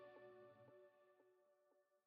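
Outro background music fading out: held tones with soft notes about twice a second, dying away.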